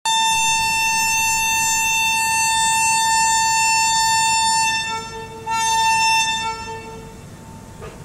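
Air horn of a WAP-7 electric locomotive sounding as the train departs: one long steady single-pitched blast of nearly five seconds, then a brief break and a second shorter blast that fades out.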